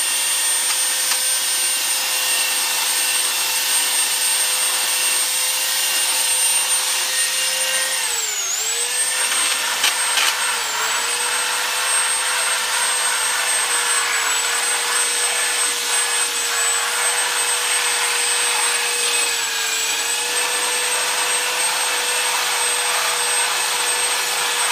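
Craftsman 3x21-inch electric belt sander running steadily with a whine and hiss as it sands wooden slats. Its pitch sags briefly about a third of the way in, as the motor takes load against the wood.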